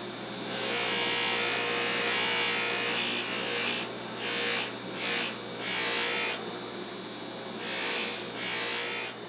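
Electric bench power tool humming steadily, with a rasping hiss as a workpiece is pressed against it. The hiss is steady for the first few seconds, then comes in a series of short strokes.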